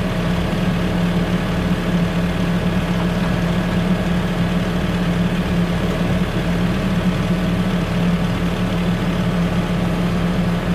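Tractor engine running at a steady speed, an unbroken drone with a strong low hum.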